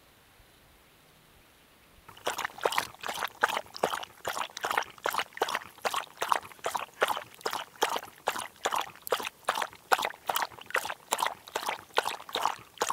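A dog lapping water from a hole in the ice, starting about two seconds in: a steady run of wet laps at about three to four a second.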